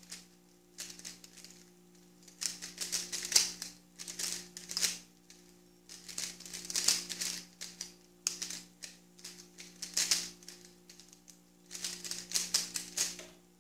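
Guoguan Yuexiao 3x3 speedcube being turned fast by hand in a timed solve: rapid plastic clicking and clacking of the layers in bursts of a second or more, with short pauses between them. The turning stops near the end as the solve finishes.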